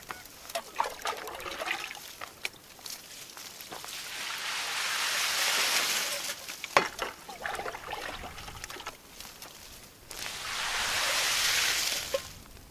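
Water poured from a pot over the top of an Afghan pine, splashing and trickling down through the needles, in two pours: one building from about three seconds in, another starting about ten seconds in. A sharp knock comes between the pours.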